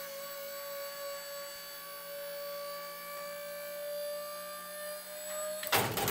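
Hydraulic pump motor driving the flatbed's tailgate cylinder, running with a steady whine that creeps slightly higher in pitch as it raises the gate. It cuts off about five and a half seconds in and is followed by a metal clunk.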